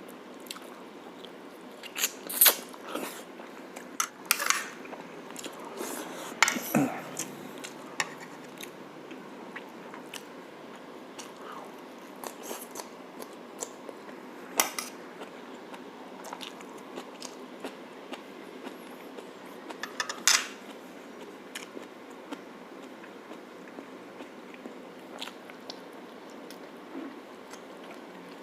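Close-up eating of braised pork shank (pata tim): chewing and biting, with scattered sharp clicks, the loudest a few seconds in and again about 15 and 20 seconds in.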